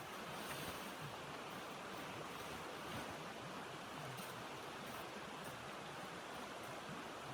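Steady rushing wind, an even hiss without pitch or rhythm.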